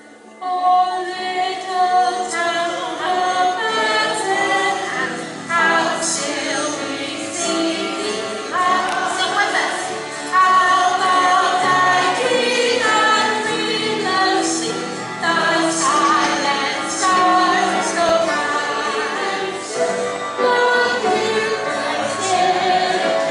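A woman singing with live piano and guitar accompaniment, the song starting about half a second in.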